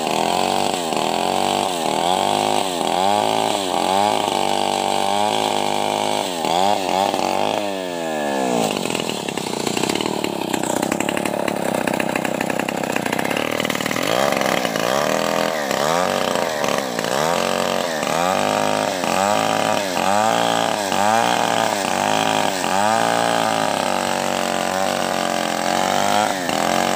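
Stihl 070 two-stroke chainsaw ripping lengthwise through a large rain tree log, the engine under heavy load, its pitch dipping and recovering over and over as the chain bites. Around eight seconds in the pitch drops steeply, then runs rougher and steadier for a few seconds before the wavering resumes.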